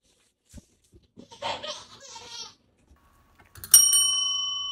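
A chrome desk service bell struck once, giving a sharp ding whose clear, several-toned ring slowly fades. Earlier there is a short, softer noise about a second and a half in.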